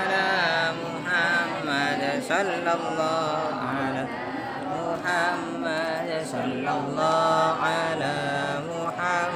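Islamic dhikr being chanted: a continuous melodic recitation whose pitch bends and wavers, broken by short pauses for breath.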